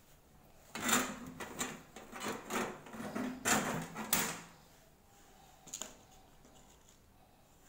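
Thin copper plate being handled and shifted on a table: a run of scrapes and knocks lasting about three seconds, then a single brief click a little later.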